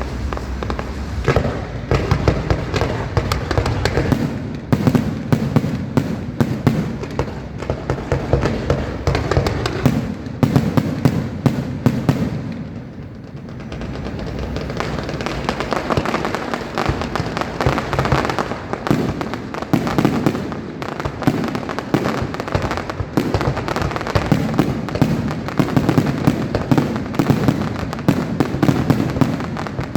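Fireworks display going off in a dense run of bangs and crackles, easing off briefly about halfway through before picking up again.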